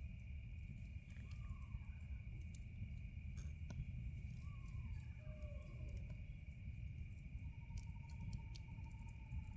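A steady, high-pitched insect chorus of crickets or similar insects, with birds calling in short, falling whistled notes every couple of seconds and one longer held note near the end, over a constant low rumble.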